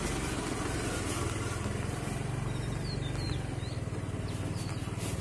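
Motorcycle engine running steadily while riding at low speed, heard from the rider's seat. A few short bird chirps come through about halfway in.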